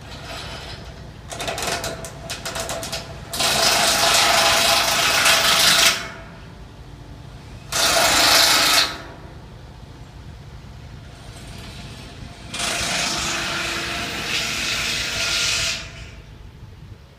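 Power tool running in four bursts of a few seconds each, the first with a rapid rattle, the others loud and steady.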